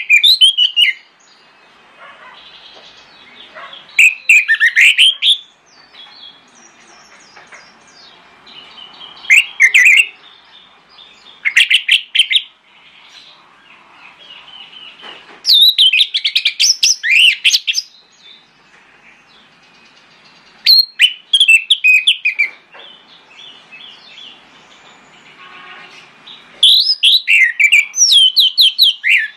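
Orange-headed thrush singing: seven loud phrases of rapid, quickly sliding notes, each one to two seconds long and a few seconds apart, with faint quieter twittering between them.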